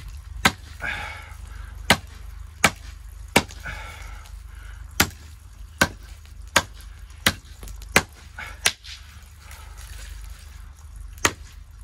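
A dull-edged hatchet (tahra) chopping pine branches on a wooden stump: a run of sharp, hard knocks, about one every three-quarters of a second, with a pause of two or three seconds near the end.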